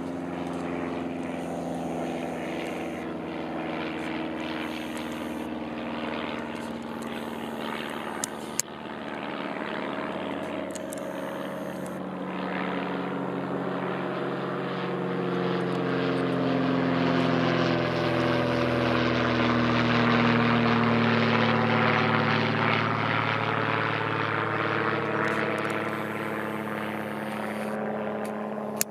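Propeller aeroplane engine droning overhead, growing louder to a peak about twenty seconds in, its pitch falling as it passes.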